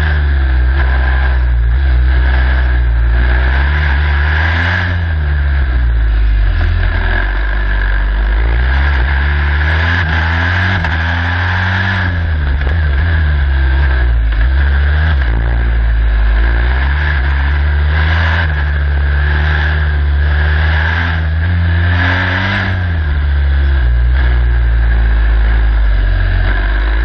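Turbocharged engine of the jr15 Formula Student race car heard onboard at close range, revving up and down repeatedly as the driver accelerates out of and brakes into tight corners in second and third gear.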